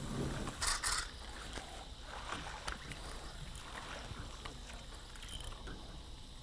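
Water sounds around a small aluminium jon boat: a brief splashy burst about a second in, then light water movement and scattered small knocks on the boat.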